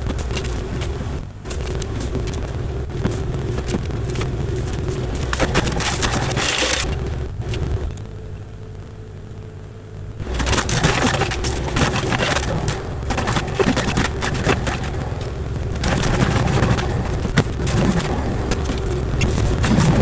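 Kubota KX040-4 mini excavator's diesel engine running under load while its hydraulic forestry mulcher head spins and shreds brush, with constant crackling and snapping of wood. About seven seconds in, the cutting noise drops away for about three seconds, then comes back louder.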